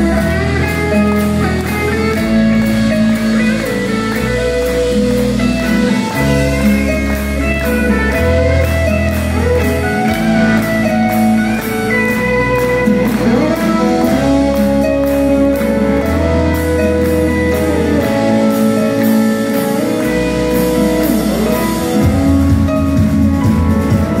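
Rock band playing live: electric guitar and keyboards over a bass line that changes note every second or two, with a steady ticking hi-hat. About 22 seconds in the band gets fuller and louder.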